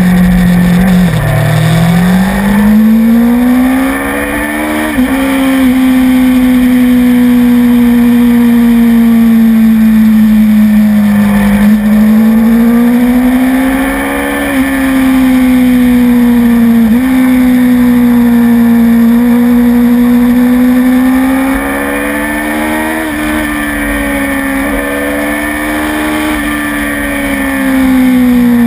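Motorcycle engine at high revs under hard riding, heard from a camera mounted on the bike: the engine note climbs and falls through the corners, broken by several sudden pitch steps as the rider changes gear, over steady wind and road noise.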